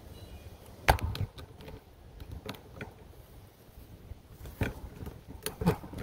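A few sharp knocks and clicks of handling, the loudest about a second in and several more close together near the end.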